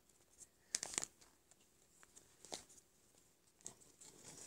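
Faint, scattered rustling and light clicks of toys and a plastic bag being handled, the loudest about a second in.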